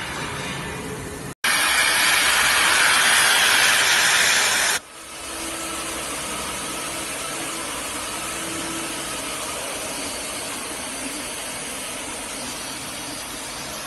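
CNC nesting router running with a steady mechanical noise. After a brief cut, a loud hiss like a blast of compressed air lasts about three seconds, then drops away to a steady whir with a faint hum.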